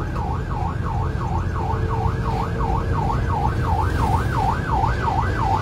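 Emergency vehicle siren in a fast yelp, its pitch sweeping up and down about three times a second without a break, heard from inside a rescue van's cabin over the low rumble of engine and road.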